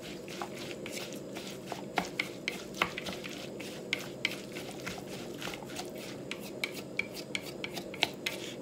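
A wooden utensil stirring a thick batter of shredded carrot and carrot leaves in a glass bowl. Irregular light clicks and taps come from the utensil knocking against the glass, with a soft wet rubbing of the batter.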